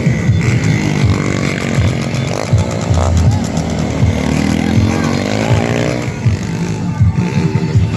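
A motorcycle engine revving hard at high rpm, its pitch climbing and then falling away around the middle. Loud music with a heavy thumping beat plays underneath.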